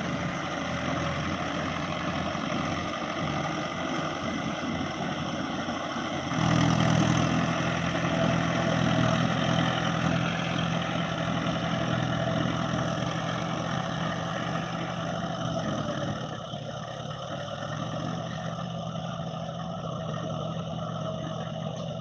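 Tractor engine running steadily under load as the tractor puddles a flooded paddy field. It grows louder about six seconds in, then fades as the tractor moves away.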